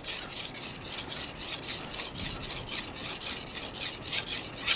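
Steel edge of a Hatsukokoro 210 mm gyuto scraping back and forth on a wet whetstone in a quick, even rhythm of about five strokes a second. The tip section of the edge is being sharpened to raise a burr while setting a secondary bevel.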